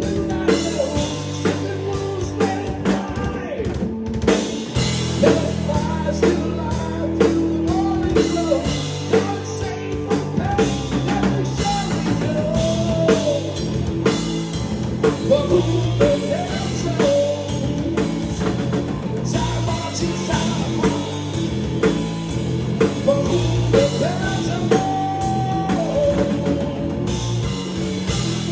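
Live rock band playing: drum kit keeping a steady beat under guitar and a sung melody.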